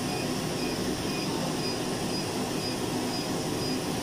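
Cynosure Elite hair-removal laser running during treatment: the steady whir of its cooling fan, with faint short high beeps about twice a second as it fires pulses.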